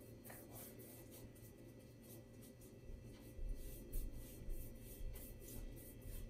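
Wide flat wash brush stroking a wet ink wash back and forth across a sheet of Tyvek, a soft scratchy swish with each stroke, two or three strokes a second. The strokes get louder about three seconds in.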